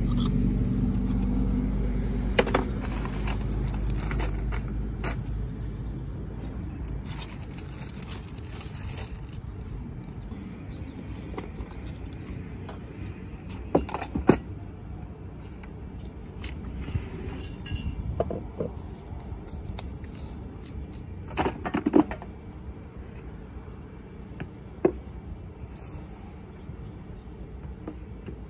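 A passing vehicle's low engine rumble that fades away over the first five or six seconds, then scattered sharp clicks and knocks as cups and espresso gear are handled at a coffee cart, with light scraping in between.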